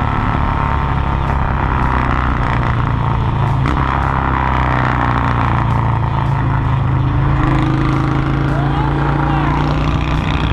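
Honda Shadow 750's V-twin engine running steadily through a loud modified exhaust with a fishtail tip.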